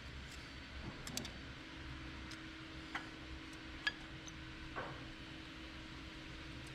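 Scattered light metallic clicks and ticks, irregularly spaced about a second apart, from tools and parts being handled during brake work, over a steady low hum.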